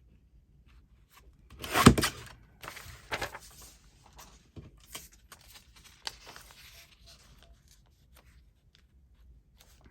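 Paper being handled: a loud rustle or crinkle of a sheet about two seconds in, followed by softer rustles and light clicks that die away after about seven seconds.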